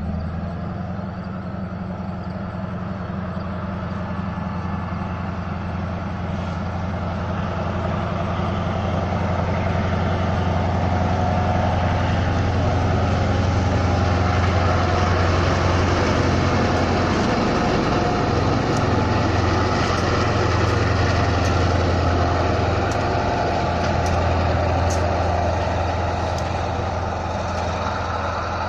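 Amtrak diesel locomotive passing slowly with a short train, its engine a steady low drone that grows to its loudest about halfway through and then eases off a little. Faint sharp ticks come in the second half.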